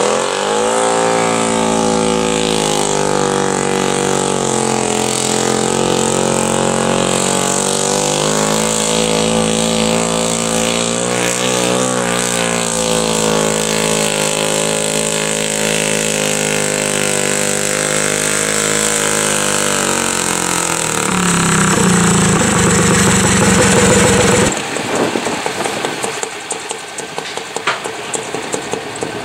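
Modified pulling garden tractor's engine revving up about half a second in and held at full throttle while dragging a weight-transfer sled, its pitch wavering under the load. After about twenty seconds the sound changes, and a few seconds later it drops suddenly to a quieter, lower running.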